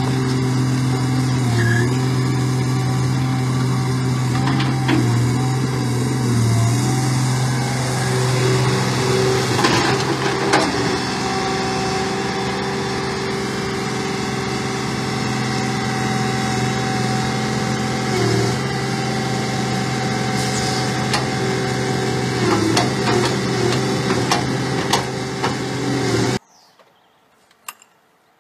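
An engine running steadily at an even pitch, with a few knocks and clanks over it. The sound cuts off abruptly near the end.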